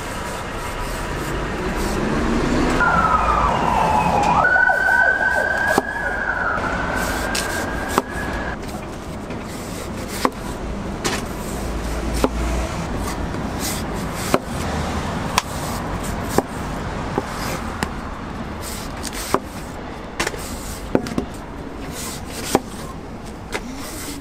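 An emergency-vehicle siren passes over steady street traffic. Its pitch glides and then holds from about 2 to 8 seconds in, the loudest part. Throughout come sharp knocks, roughly one a second, of a kitchen knife cutting through a watermelon and striking a wooden cutting board.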